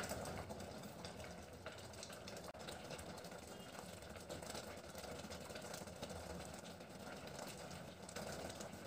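Rice pot simmering on a low gas flame: a faint, steady low hum with a light hiss.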